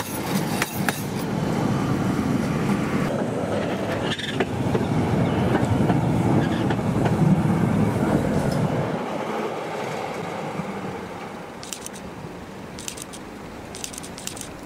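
Ex-Vienna E1 tram passing on street track: a rolling rumble with wheel clatter that swells to its loudest about seven or eight seconds in, then fades away. A few brief high-pitched noises follow near the end.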